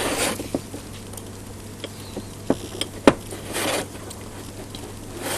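Hands and tools working on the rotator's housing on a bench: a couple of sharp clicks about two and a half and three seconds in, followed by a short rustle, over a steady low hum.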